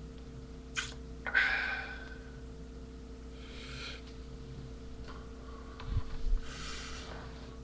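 A man breathing hard and sniffing in short noisy puffs, the loudest about a second in, with two soft low thumps near six seconds.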